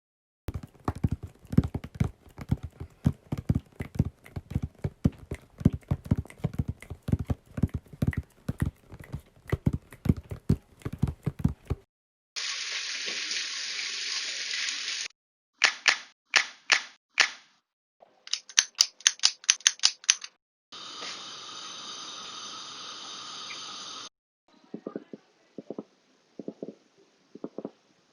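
A sequence of home-made Foley sound effects. First, rapid tapping on a cardboard box and clicking hands, imitating rain. Next comes sizzling oil, then five sharp snaps of celery for breaking bones, a quick run of padlock clicks for a gun cocking, and a gas stove burner's steady hiss for fire. It ends with paired low thuds from a jam lid, imitating a heartbeat.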